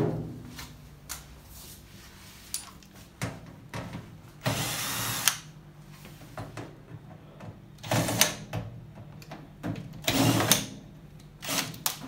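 A 14.4 V cordless drill driver runs in about four short bursts, the longest about a second, as it unscrews the screws of a microwave oven's outer cover. Small knocks and clicks come between the bursts.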